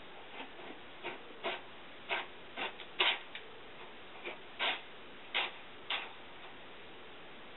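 Cat scratching and digging in a litter box of white granular litter: a string of irregular short scraping rattles, loudest about three seconds in, stopping about six seconds in.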